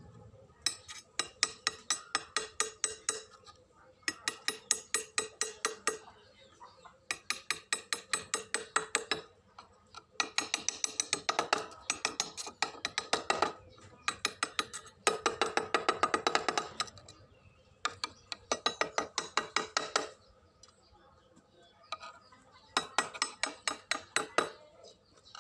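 Rapid, regular taps or clicks, about eight a second, in bursts of two to three seconds with short pauses between.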